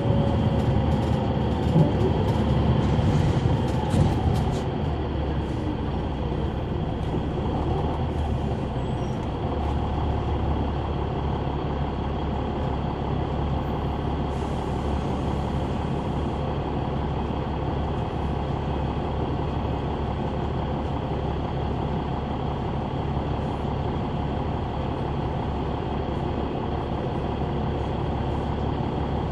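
Caterpillar C9 ACERT diesel and ZF automatic transmission of a 2004 Neoplan AN459 articulated transit bus, heard from inside near the back while the bus is driving, running steadily. A whine falls in pitch in the first two seconds, and there are rattles and clicks during the first few seconds.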